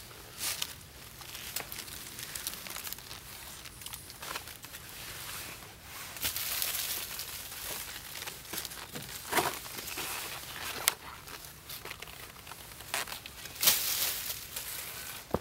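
Short-handled shovel scraping and digging into earth, with dry leaf litter rustling and crunching. A few sharp knocks stand out about nine and eleven seconds in, and the loudest scrape comes near the end.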